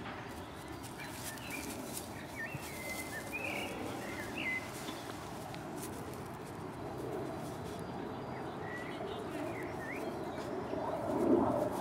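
Wild birds chirping in short, scattered calls over a steady outdoor hiss. A louder, lower-pitched sound comes in near the end.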